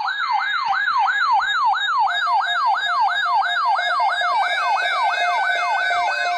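Electronic siren-style alert sound sweeping rapidly up and down, about three sweeps a second. Steady electronic tones join it about two seconds in and build up toward the end.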